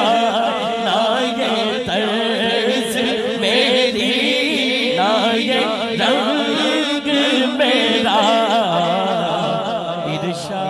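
A man singing a naat (Urdu devotional kalam) into a microphone, in long, wavering, drawn-out melismatic phrases.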